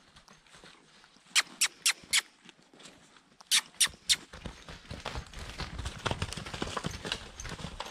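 Horses' hooves stepping and shuffling on the ground, with dull thuds and knocks filling the second half. Before that, two quick runs of sharp clicks, four and then three.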